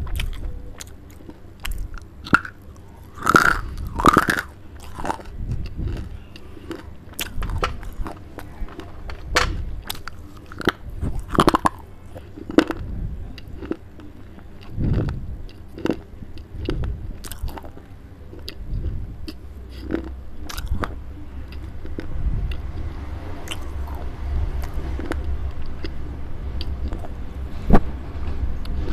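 Baked clay being bitten and chewed right at a clip-on microphone: gritty crunches and cracks, coming thick in the first half and thinning to softer chewing later, with one sharp crack near the end.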